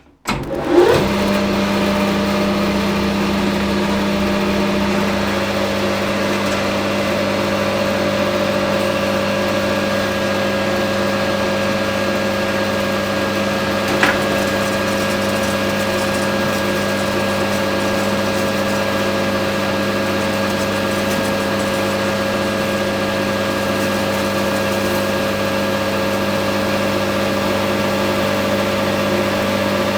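Hafco Metal Master AL960B metal lathe starting up about a second in and then running steadily, its motor and gear train giving a constant hum, with one brief tick about halfway through.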